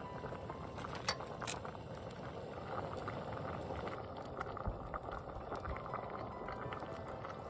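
Liquid bubbling at a simmer, a steady close bubbling, with two sharp clicks about a second in.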